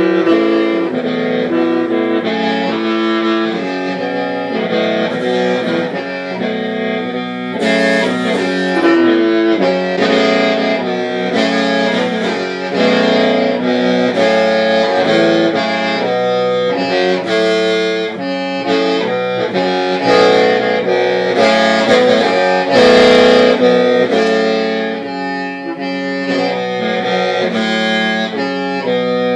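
Hmong qeej (lusheng), a free-reed bamboo mouth organ, playing a melody of held, overlapping notes over a steady low drone.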